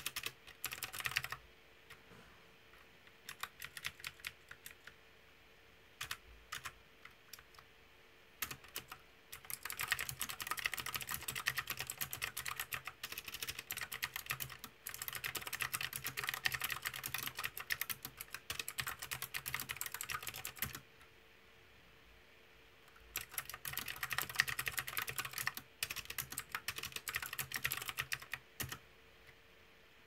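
Typing on a mechanical keyboard with round, typewriter-style keycaps and blue-stemmed switches: scattered single keystrokes in the first seconds, then a long run of fast, continuous clacking, a pause of about two seconds, and a second fast run that stops a little before the end.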